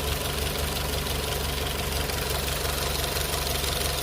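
VW 1.4 TSI four-cylinder turbo petrol engine idling steadily while warm, with a slight slapping of the timing chain as it whips around its guides. The chain noise is the timing chain fault behind codes P3008 and P0341; it is not terrible with the engine warm.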